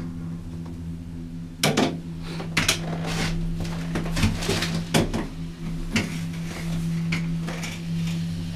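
Steady low hum inside a moving gondola cable-car cabin. Irregular sharp knocks and rattles come from about two seconds in until about six seconds in.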